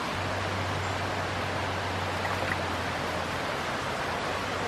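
Shallow stream water running steadily over rocks and gravel, with a faint low hum underneath for most of it.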